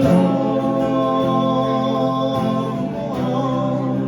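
Song: singers holding one long drawn-out sung note in a country ballad.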